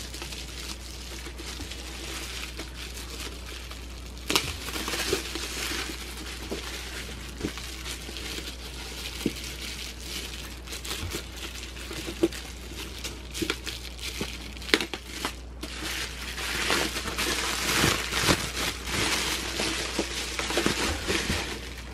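Plastic bubble wrap crinkling as hands pull and peel it apart from around a boxed figure, with many sharp little clicks; the handling gets louder for the last few seconds.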